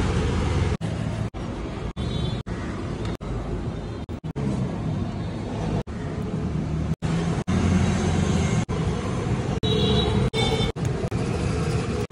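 Steady street traffic noise around a roadside food stall, a dense rumble with no clear single event, broken every second or so by brief dropouts where short clips are spliced together.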